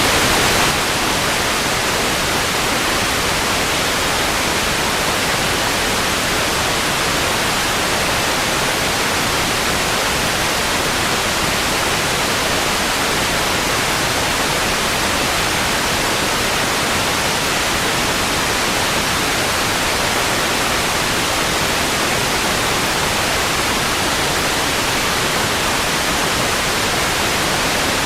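Steady hiss of static from an untuned analogue television, an even, unbroken rush of noise. It is a touch louder in the first moment, then holds level.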